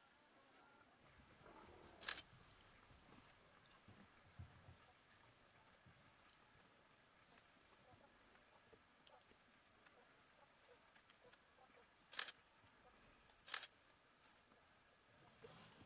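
Faint, high, pulsing insect trill, with three sharp clicks or snaps standing out: one about two seconds in and two near the end.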